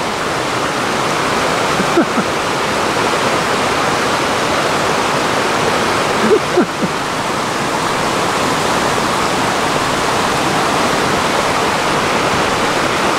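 Fast mountain stream rushing over rocks and small cascades, a steady, loud, even rush of water.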